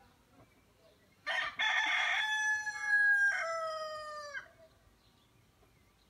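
Rooster crowing once: a single cock-a-doodle-doo about three seconds long, starting about a second in and ending on a falling note.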